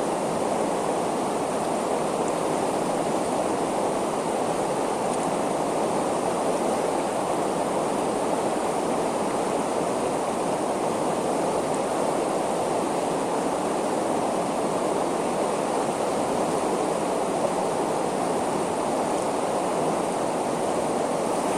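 River water rushing steadily over rocks and shallow rapids.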